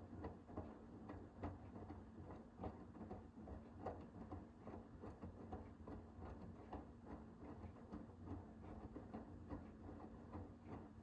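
Hoover H-WASH 500 washing machine in the wash phase of a cotton cycle: the drum turning, with soft, irregular clicks and knocks of laundry and water tumbling over a low, steady motor hum.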